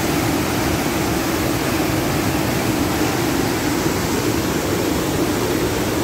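Mountain stream cascading over and between boulders: a steady, loud rush of white water.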